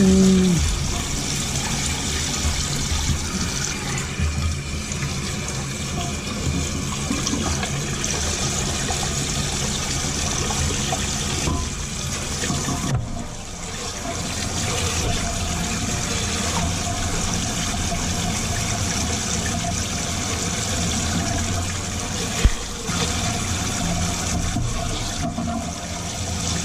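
Water rushing steadily in a toilet as it flushes and the tank refills, with a brief dip about halfway and a single sharp click about three-quarters in.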